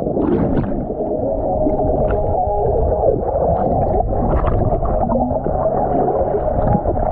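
Loud, muffled rushing of water: a dense, low noise with brief sharper splashes scattered through it.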